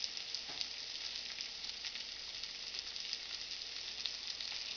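Onions, jalapeño peppers and garlic sizzling in hot oil in a sauté pan: a steady frying hiss dotted with small crackles. The heat is high, with the garlic turning brown.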